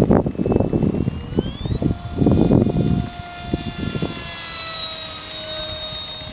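Small RC jet's 55 mm six-blade electric ducted fan, driven by a brushless outrunner, whining as it flies overhead. Its pitch rises sharply about a second and a half in as the throttle opens, then holds high and sags slowly. A low gusty rumble of wind on the microphone is loudest in the first three seconds.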